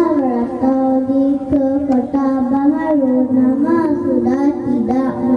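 A young girl singing a Malay pantun verse in a drawn-out melodic style, over backing music with long held notes.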